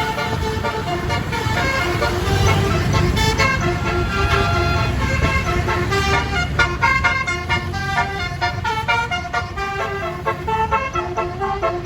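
Bus telolet horn, a Basuri 36-note air horn, playing a melody of short notes that change pitch several times a second, over a bus engine's low rumble.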